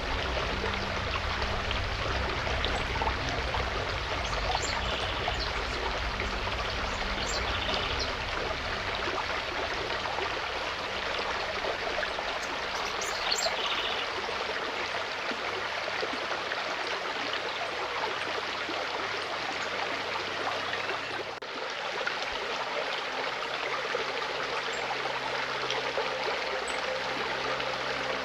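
A forest stream flowing steadily over stones, with a continuous rushing and splashing. Soft low background music sounds under the water for roughly the first half and then fades out.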